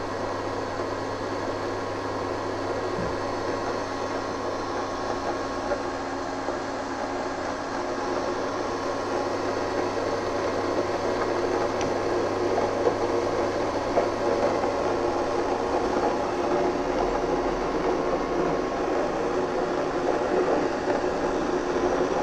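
Prestige PIC 3.1 V3 induction cooktop running at 2000 W, its cooling fan whirring with a steady hum, while water in a steel pot heats toward the boil and small bubbles form. The sound grows slightly louder over the stretch.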